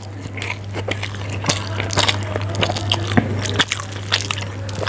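Close-miked wet chewing and mouth smacks of soft Maggi instant noodles, with irregular clicks and squelches, and fingers squishing into the pile of cooked noodles. A steady low hum runs underneath.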